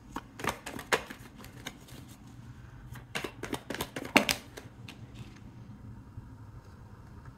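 Tarot cards being shuffled by hand: two bursts of quick papery clicks and slaps, the first just after the start and the second from about three to four and a half seconds, with the sharpest slap a little past four seconds.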